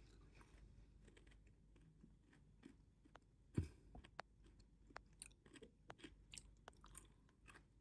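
Near silence broken by faint, irregular small clicks and taps, with one slightly louder tick about three and a half seconds in.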